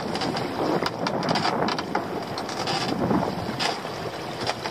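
Wind buffeting the microphone over lapping sea water, with scattered knocks and splashes as a rope-netted lobster pot is hauled up out of the water and over the side of a small boat.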